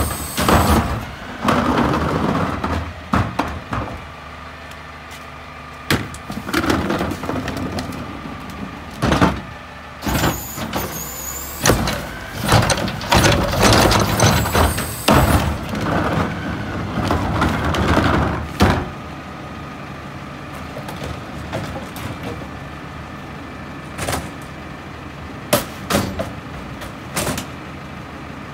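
Front-load garbage truck with a carry can running while the carry can's arm lifts and tips a plastic trash cart: the engine revs under the hydraulic load, with a short rising hydraulic whine and a string of bangs and knocks as the cart is dumped. The engine then settles to a steady idle, with a few separate knocks near the end.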